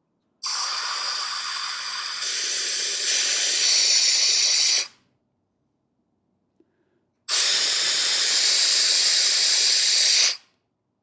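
Compressed air hissing out of the tires through a Thor's Lightning four-tire deflation kit, in two bursts of about four and three seconds with a short silence between; the first burst gets louder in two steps. The tires are being aired down by about another pound, from 34 toward 33 PSI.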